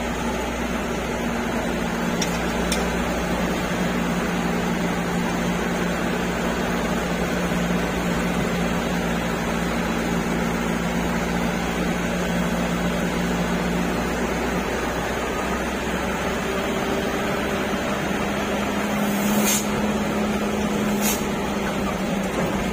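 Inside a moving truck's cab: the engine runs steadily under an even hum of road and cab noise, its pitch shifting a little partway through. There are two brief sharp knocks near the end.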